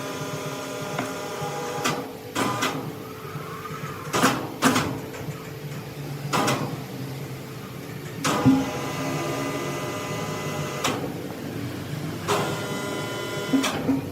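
Sawmill machinery running steadily, with sharp clanks at irregular intervals of about one to two seconds, several of them leaving a ringing metallic tone.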